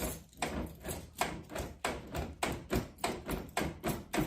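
Pickup truck door lock being worked back and forth, clicking sharply about three times a second as the stiff mechanism is freed up after cleaning.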